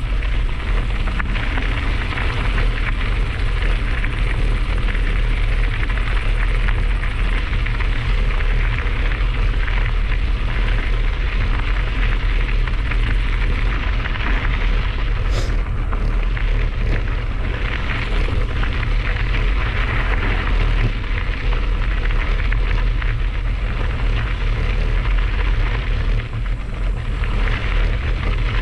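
Mountain bike tyres rolling and crunching over a loose gravel trail, with wind buffeting the microphone as a steady low rumble. A brief high chirp sounds about halfway through.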